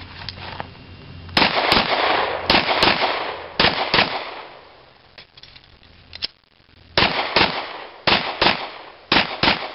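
Service pistol fired in quick pairs, the two shots of each pair about a third of a second apart: three pairs, a pause of about three seconds, then three more pairs.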